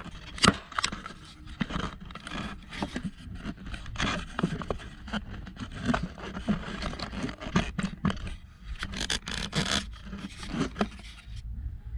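Wires being handled and pushed into place by hand: irregular scraping and rubbing with sharp little clicks and knocks, stopping shortly before the end.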